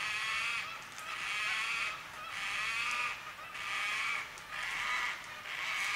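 White-tailed black cockatoos calling: a run of about six harsh, wailing calls, one roughly every second.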